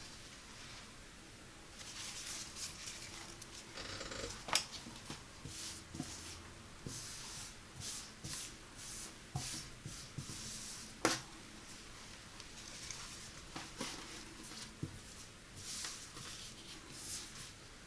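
Hands handling and smoothing a polo shirt's fabric on a tabletop: a run of soft rustling swishes, with a couple of sharp taps.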